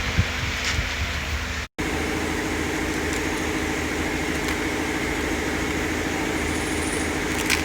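A few low knocks, then the sound cuts out briefly, and a steady mechanical hum with a fast, even pulse follows.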